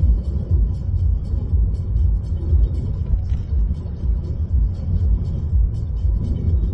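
Low, steady road rumble inside a moving car's cabin.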